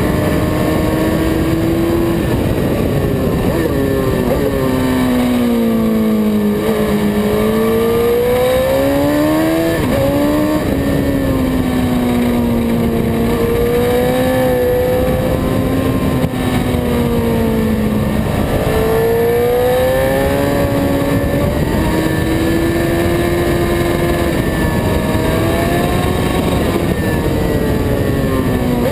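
Racing motorcycle engine at speed on track, its pitch climbing as the bike accelerates and falling away as it slows for corners, several times over, with a constant rush of wind noise on the camera.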